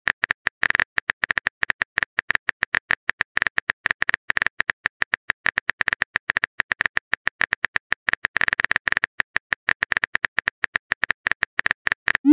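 Rapid, irregular keyboard-typing clicks, several a second, from a texting-app typing sound effect. A short rising pop near the end marks the message being sent.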